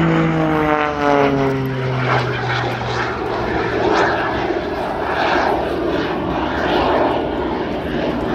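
Propeller-driven aerobatic display plane passing and climbing away, its engine note falling in pitch over the first couple of seconds, then a rougher rushing engine sound that swells and fades.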